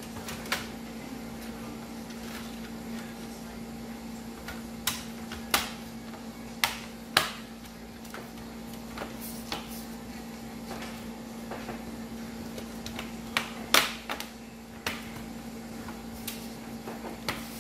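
Plastic clips of an HP laptop's keyboard deck snapping into the base as the deck is pressed down along its edges: about a dozen sharp, separate clicks, the loudest coming in two groups about a third and about three-quarters of the way through, over a steady low hum.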